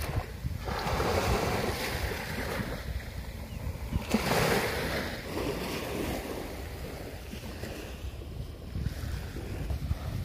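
Small waves breaking and washing up a sandy beach, swelling twice, about a second in and again about four seconds in, with wind rumbling on the microphone.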